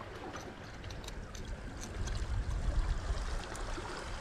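Seawater lapping and trickling among shore rocks, with a low rumble that swells about two seconds in.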